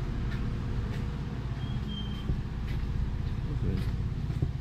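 Steady low rumble of street traffic and vehicle engines, with faint irregular ticks and a brief thin high squeak about two seconds in.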